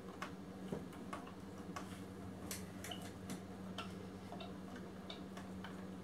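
Countersink bit turned by hand in a Leatherman Skeletool CX's bit driver, cutting into a wooden board: faint, irregular clicks, about two a second, over a steady low hum.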